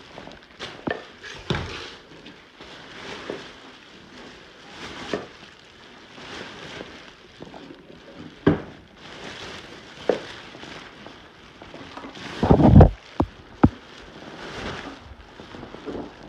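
Scattered knocks, thuds and rustling of clutter and debris being handled and moved about in a room, at uneven times. The loudest is a clatter about three-quarters through, followed by two sharp knocks.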